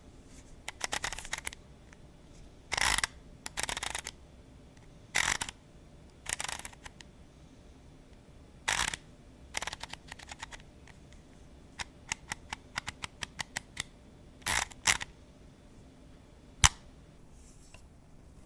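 Irregular short crisp strokes and clicks: several brief scraping or snipping strokes, then a quick run of about ten light clicks, then a single sharp click near the end.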